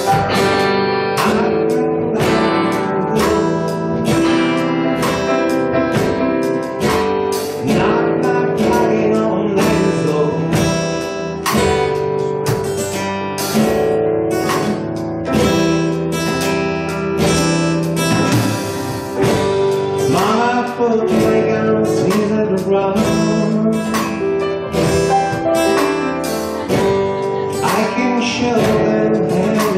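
Live instrumental music: an acoustic guitar and an electric guitar playing together, with a drum kit keeping a steady beat and a cymbal crash about two-thirds of the way through.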